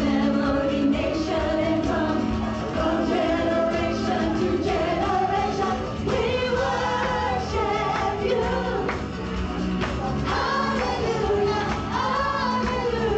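A live worship band plays while a group of women sing a praise song into microphones, their voices blending in a choir-like sound.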